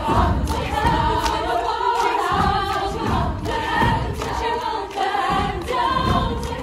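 Treble choir of teenage girls singing in harmony, with sharp percussive hits keeping the beat.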